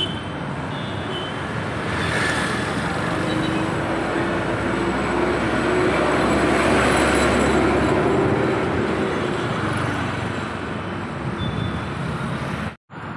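Road traffic, with a heavy tanker truck passing close by: its engine and tyre noise swell to a peak about halfway through, then fade. The sound cuts out briefly near the end.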